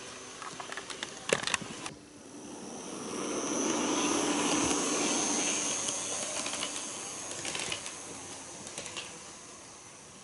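HO-gauge model KiHa 110 railcar running past close by: wheels rolling on the track with a steady motor whine, rising to a peak about four seconds in and then fading as it moves away. Sharp clicks of the wheels over rail joints come near the start and again late on.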